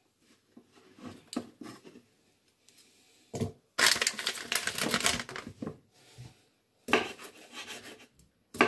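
Knife cutting garlic cloves on a wooden chopping board: scattered knocks and scrapes, with a longer rough scraping or rustling stretch of about two seconds starting around four seconds in.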